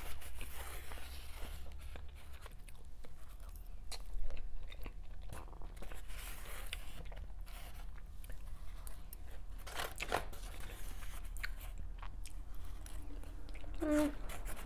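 Close-up eating sounds: chewing and biting, with a metal fork scraping and clicking against a styrofoam takeout container.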